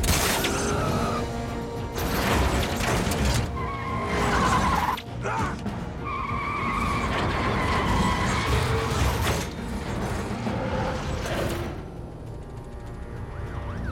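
Action-film car-chase sound mix over a music score: car engines running hard, tyres screeching in long squeals, and loud crashes, with a heavy impact right at the start.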